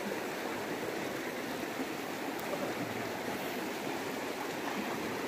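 Shallow river flowing over stones: steady, even running-water sound.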